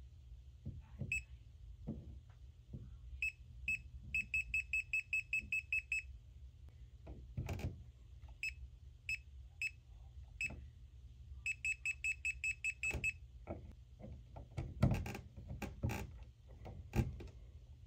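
Kaiweets KM201 multimeter beeping: short high beeps, some single and some in quick runs of about seven a second, as it is held to a live wall outlet. Test-probe tips click and knock in the outlet slots, most loudly near the end.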